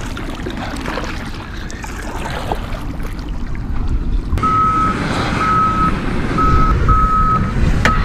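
Low rumbling noise, then from about four seconds in a vehicle's reversing alarm beeping roughly once a second at one steady high pitch, typical of construction machinery or a truck backing up.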